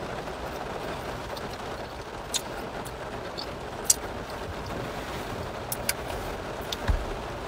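Steady hum inside a car's cabin, with a few short sharp clicks.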